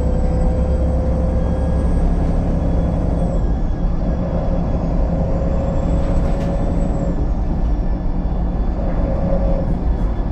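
VDL SB200 Wright Pulsar 2 bus running under way, heard on board: a steady low engine rumble with a whine over it, the hoover-like sound the bus is nicknamed for. The whine fades about seven seconds in.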